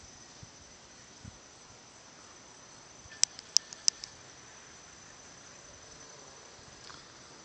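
A steady high-pitched insect drone, with a quick run of four or five sharp clicks about three seconds in.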